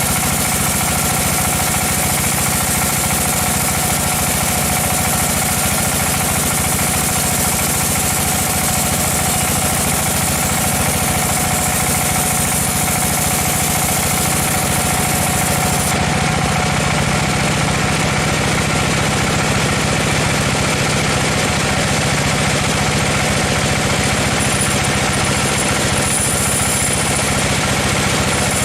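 Sawmill machinery running steadily with a constant mechanical hum; the sound changes about halfway through.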